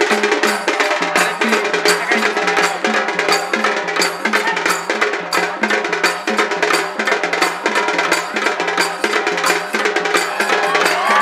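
Zanj pathak ensemble playing: zanj hand cymbals clashing together with dhol drums in a fast, steady rhythm of about four to five strokes a second.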